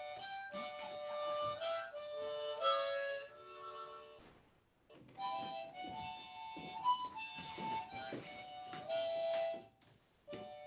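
A short melody played on a wind instrument: held notes stepping up and down in two phrases, with a brief pause about four and a half seconds in.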